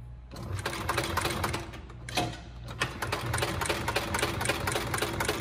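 Seiko SLH-2B 7-class heavy-duty walking-foot sewing machine stitching through five layers of heavy webbing, with a rapid, even clatter of needle and feed. It starts a moment in, eases off with a single knock about two seconds in, then runs steadily again.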